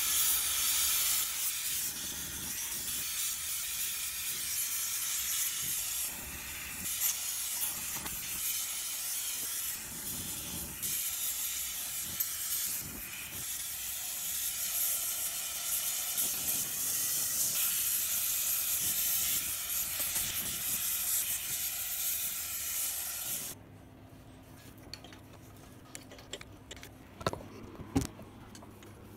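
Gas torch hissing steadily as its flame heats the cylinder of a seized LMM-6A two-stroke outboard motor, to free an engine that will not turn over. The hiss cuts off suddenly near the end, leaving faint clicks and taps.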